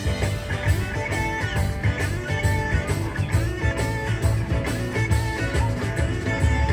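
Music with guitar and a bass-heavy beat.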